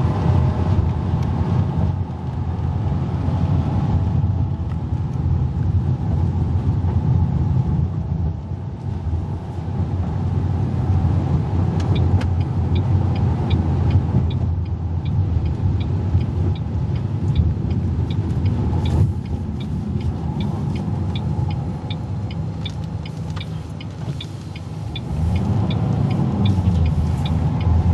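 Car driving along, heard from inside the cabin: a steady low road and engine rumble. About halfway through, a regular light ticking starts and keeps going.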